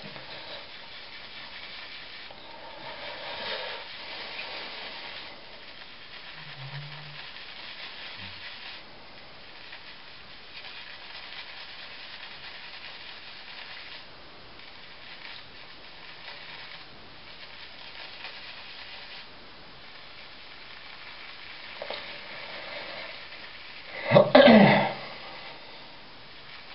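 A Mühle badger shaving brush swirled on a puck of shaving soap, loading the brush: a soft scratchy swishing that comes and goes in spells. About three-quarters of the way through, a short loud burst stands out.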